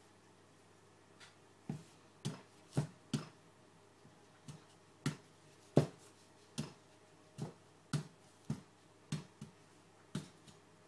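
A fork stabbing into a raw sweet potato on a wooden chopping board: a run of about fifteen sharp thuds at an uneven pace, roughly one every half second to second, starting about two seconds in, as the potato is pierced all over before baking.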